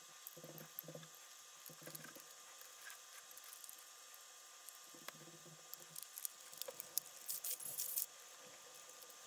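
Hard plastic shell halves of a toy duck being handled and fitted together: short low rubbing sounds early and around the middle, then a dense run of clicks and crackling scrapes between about seven and eight seconds in, the loudest part.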